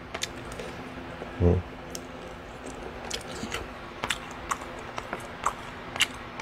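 Eating sounds: a man eating samgyetang (chicken soup) with scattered small clicks and smacks, and a brief low 'mm' about a second and a half in, over a faint steady hum.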